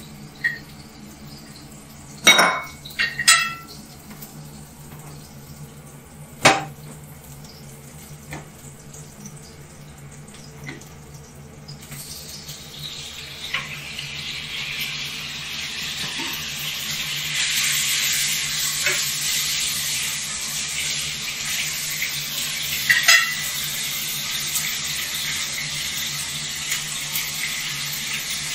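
Kitchen sounds: pots, pans and dishes clink and clatter a few times. About twelve seconds in, a steady hiss starts and grows louder, then holds, with a couple more clinks near the end.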